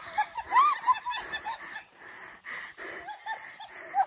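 A duck quacking in quick strings of short calls, mixed with people laughing.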